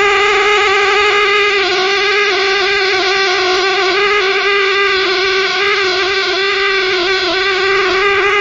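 A continuous, steady drone: one pitched tone with a tall stack of overtones, wavering slightly in pitch throughout. It is a sound picked up by a window-facing video recorder that the owner cannot hear by ear, and likens to a pig's squeal.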